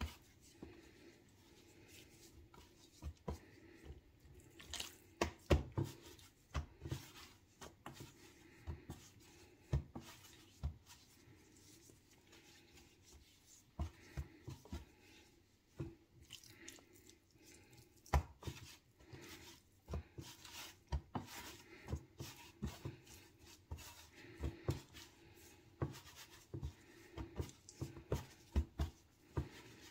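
Hands coating raw chicken pieces in a dry flour mix: irregular soft taps, clicks and rubbing as pieces are dredged and set down, one after another.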